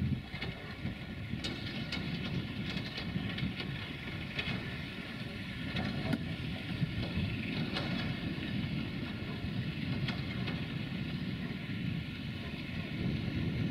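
Class 060-DA (LDE2100) diesel-electric locomotive's Sulzer diesel engine running under load as it hauls a loaded freight train, heard from a distance as a steady low drone, with wind on the microphone and a few faint clicks.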